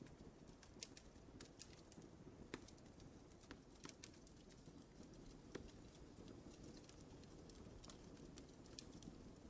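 Wood fire crackling faintly: scattered small pops and snaps, irregular and a few a second, over a soft low rumble of burning.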